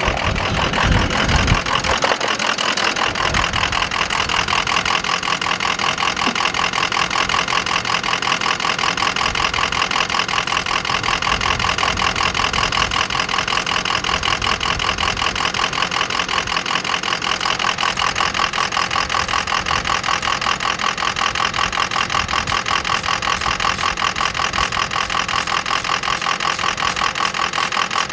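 Vehicle engine idling steadily, with a fast, even pulse.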